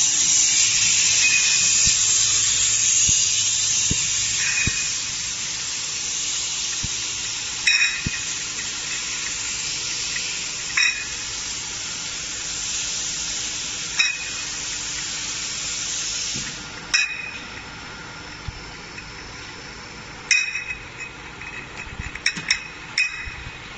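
Glass beer bottles clinking against each other on a bottling-line conveyor, a sharp ringing clink about every three seconds and several quick ones near the end. Underneath is a steady hiss from the bottling machinery, loudest for the first few seconds and then easing off.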